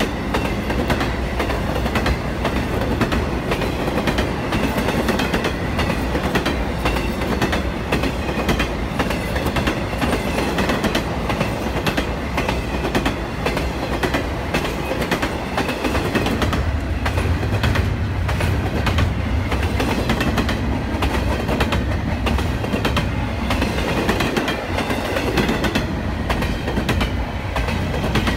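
Intermodal freight train cars rolling past, a steady rumble with the wheels clicking over the rail joints. The low rumble grows heavier about halfway through.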